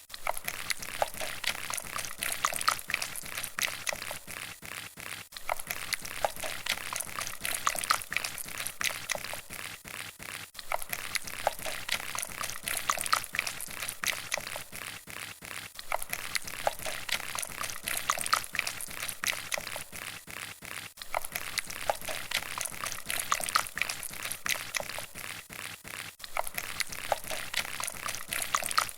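A dense crackling, liquid-like noise made of many fine clicks, looped with a short dip about every five seconds.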